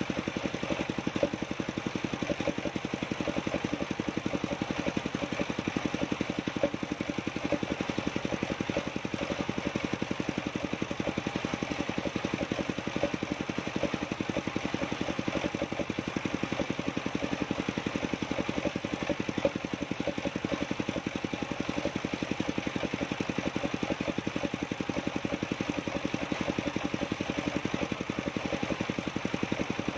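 An engine running steadily at idle, with a fast, even beat that does not change.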